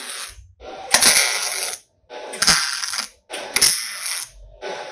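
MIG welder laying tack welds on steel plate: short bursts of crackling arc, each about a second long, four of them in a row with brief pauses between.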